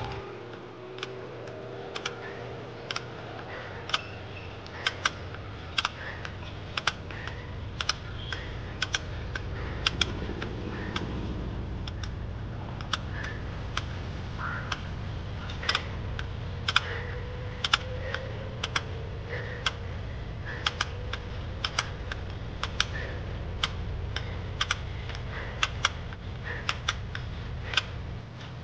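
Mountain bike on a steep climb: irregular sharp clicks and ticks, about one or two a second, over a steady low rumble.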